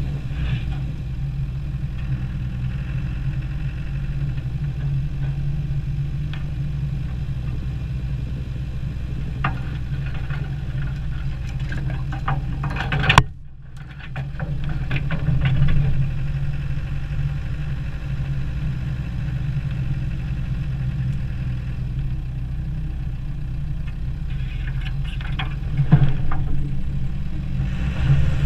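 Land Rover Defender 90 engine running steadily as the truck creeps along a snowy trail, with occasional scrapes and knocks, typical of brush brushing against the body. There is one sharp knock near the middle, followed by a brief dip in the sound.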